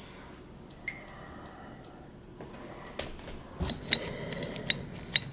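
Quiet room tone with a single small click about a second in, then several sharp light clicks and knocks from about three seconds in: gloved hands handling the dishwasher's metal electrical junction box and its wiring.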